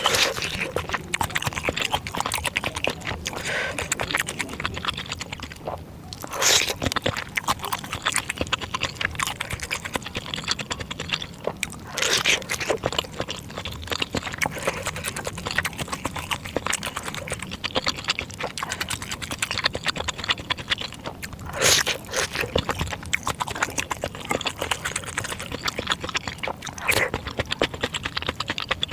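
Close-miked chewing of bakso meatballs and noodles in spicy broth: a steady run of wet mouth clicks and chewing, with four louder, longer eating sounds spread through it.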